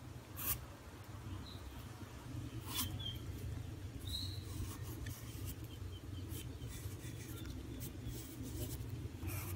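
Graphite pencil sketching on paper, faint light strokes over a steady low hum, with a few short faint high chirps.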